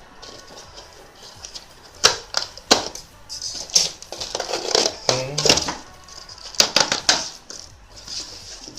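Plastic packaging rustling and crinkling as it is pulled open by hand, broken by several sharp clicks and knocks from about two seconds in.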